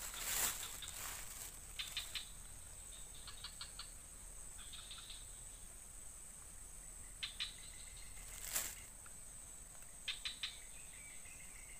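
Steady high-pitched drone of insects, with short rapid chirps every couple of seconds and one brief sharp noise about eight and a half seconds in.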